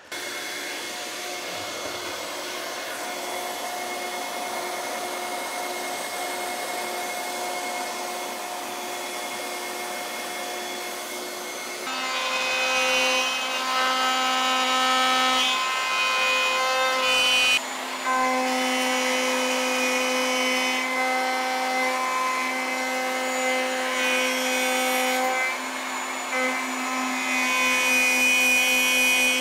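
Triton plunge router with dust extraction running: a steady hum at first, then louder and uneven from about twelve seconds in as the bit cuts a shallow recess into plywood. The sound briefly drops out once.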